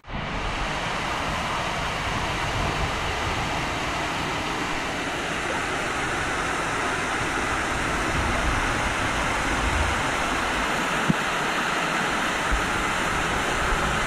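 Waterfall cascading over stepped rock ledges close by: a steady, loud rush of falling water.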